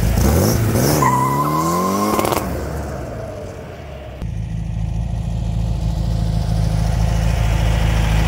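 Turbocharged air-cooled VW Beetle flat-four revving up under acceleration, its pitch rising for about two seconds with a steady whistle over it, then the sound dying away. About four seconds in there is an abrupt cut back to the engine running steadily.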